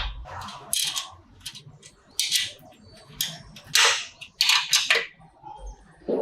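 About ten irregular sharp clicks and knocks, typical of tools and small metal parts being handled and set down during motorcycle repair work.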